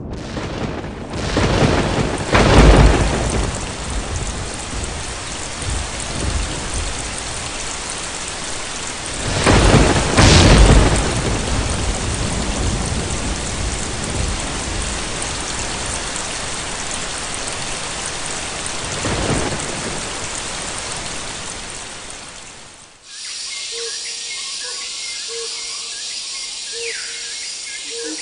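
Heavy rain pouring down in rainforest, with thunder rumbling three times, about two, ten and nineteen seconds in. The rain stops abruptly near the end and gives way to a jungle chorus of steady high insect buzzing, a short call repeated about once a second and a couple of falling whistles.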